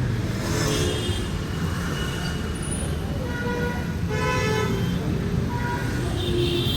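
Road traffic running with a steady low rumble, and vehicle horns honking several times: briefly about a second in, a longer honk around four seconds in, and another near the end.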